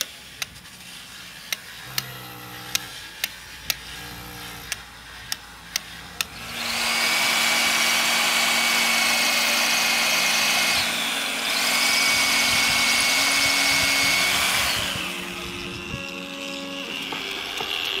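Handheld power tool running at speed with a steady high whine for about eight seconds. Its pitch dips briefly about halfway through before it settles down to a quieter hum. Before it starts, a string of sharp clicks sounds roughly once or twice a second.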